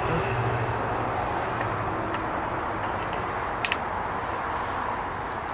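Steady rushing noise throughout, with a few light clicks and a sharp double clink about three and a half seconds in as metal tongs handle the mold halves and the cast silver ingot on a steel bench.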